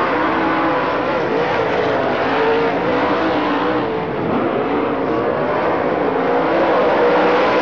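Engines of racing vehicles running steadily, several pitches at once, wavering slightly up and down, with a small dip in level about four seconds in.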